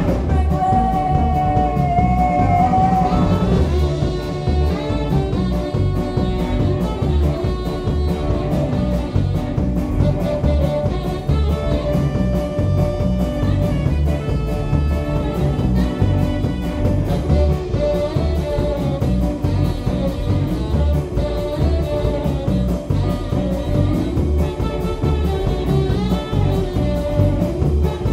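A live rock and roll band playing: drum kit, electric guitars and saxophone, with a woman's lead vocal.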